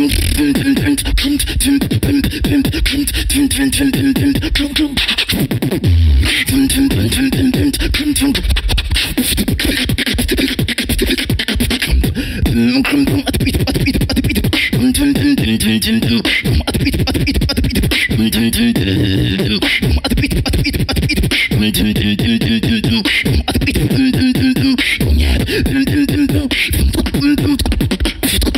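Solo human beatboxing into a handheld microphone: a fast trap beat of dense drum sounds, with a pitched vocal line over it in short phrases and a deep bass hit about six seconds in.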